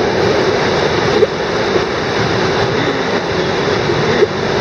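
A train running along the track below, a steady rolling rumble with an occasional clank.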